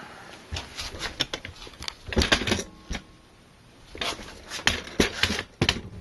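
Irregular clicks and light knocks from a PC case being handled, in several short clusters with a quiet gap in the middle.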